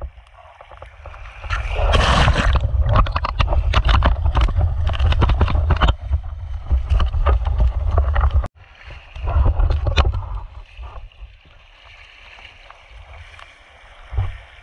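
Wind buffeting the microphone and river water splashing against a camera held at water level, a low rumble with a dense run of knocks and clicks from about two to eight seconds. The sound cuts out for an instant near the middle and is quieter near the end.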